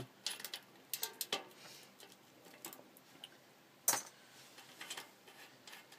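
Light metal clicks and clinks of bicycle tools being handled on a Shimano cassette lock ring as it is worked loose: a cluster of small clicks in the first second and a half, one sharper click about four seconds in, and a few more near the end.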